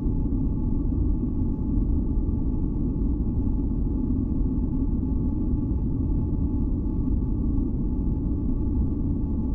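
A steady, deep masking-noise track: an even low rumble with a few faint high tones held steady above it, unchanging throughout.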